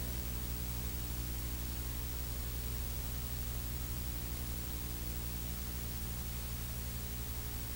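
Steady electrical hum with a flat hiss over it, unchanging, with no other sound.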